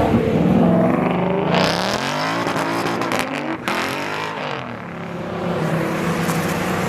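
A car engine revving hard as the car accelerates away, its pitch climbing and falling twice: once about two seconds in and again around the fourth second.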